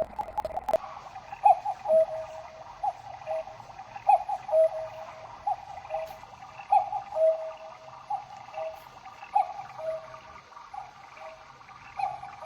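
Kendal MX210 wooden cuckoo clock calling: a higher note followed by a lower one, repeated about every two and a half seconds, four full calls, cut off as another begins. A couple of sharp clicks come just after the start.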